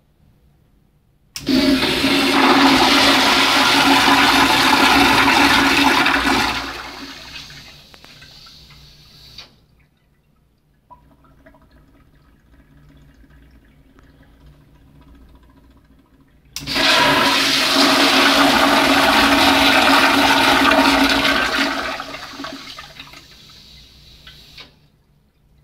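Crane Plumbing blowout toilet flushed twice by its pressure flush valve: each time a sudden loud rush of water that holds for about five seconds and then dies away into a trickle as the bowl refills.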